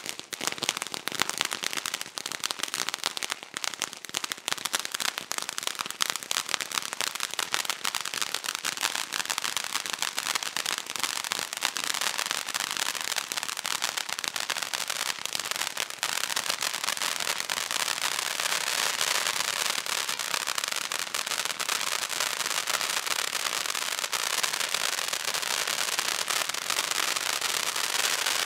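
A 20-inch color volcano firework fountain burning. It starts as a dense spray of crackles over a hiss, and after about sixteen seconds settles into a steadier, more even rushing hiss.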